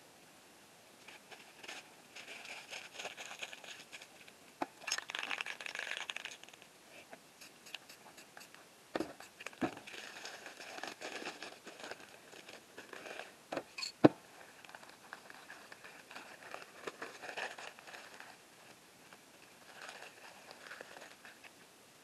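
Paper crinkling and scraping against a wet spray-painted surface, in several short crackly spells, with scattered sharp clicks; the loudest click comes about two-thirds of the way through.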